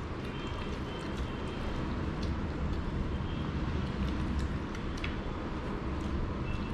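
Steady low background rumble, with scattered faint clicks and a few short, high chirp-like tones.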